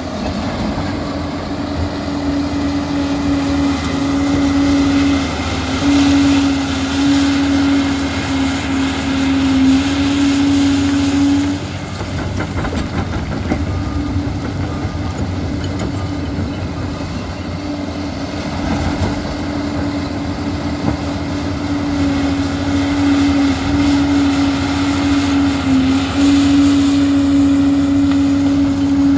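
Liebherr PR 746 hydrostatic crawler dozer working: its diesel engine runs under load with steady track clatter, and a high steady whine sounds over it. The whine drops out for several seconds about halfway through, then comes back.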